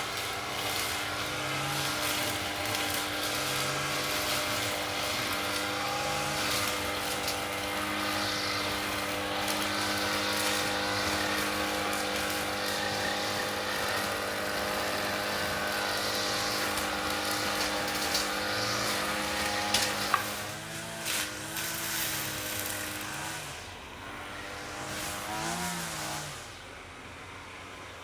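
Lawn mower engine running steadily. About twenty seconds in, after a click, it gets quieter and its pitch wavers up and down.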